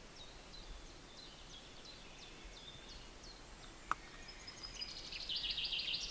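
Faint songbird calls: a series of short, high, downward chirps, turning into a rapid high trill near the end. A single light click about four seconds in.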